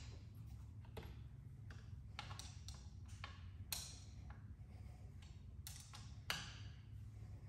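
Light, scattered clicks and taps of a small hand tool and brake-lever parts being handled on an e-bike handlebar, with two sharper clicks a few seconds apart, over a low steady hum.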